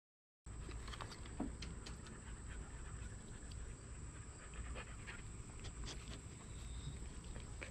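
Siberian husky panting close by, starting about half a second in, with scattered small clicks through it.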